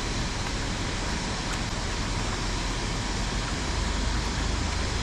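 Steady rushing noise of river water, with a low, uneven rumble of wind on the microphone.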